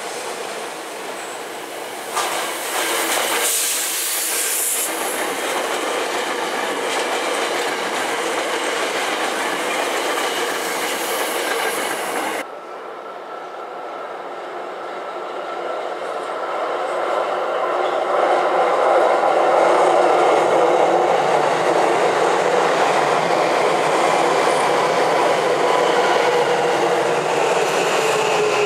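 Tokyo Metro Namboku Line 9000 series electric trains running on the rails, wheels clattering, with a louder stretch of rail noise a few seconds in. About halfway through the sound changes abruptly to a second, renewed 9000 series train running close past a station platform. It grows louder, with a steady motor whine whose tones fall near the end as the train slows.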